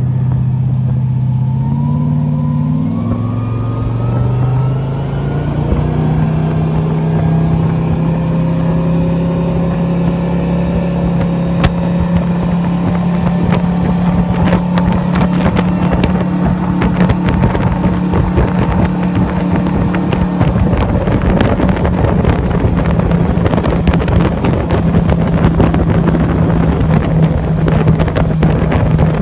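Motorboat engine throttling up, its pitch climbing in steps over the first several seconds and then holding steady at cruising speed. Rushing wind and water noise builds up in the second half as the boat runs.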